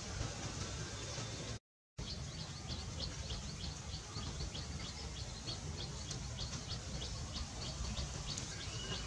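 A small bird chirping in quick repeated notes, several a second, over a steady low outdoor rumble. The sound cuts out completely for a moment just before two seconds in.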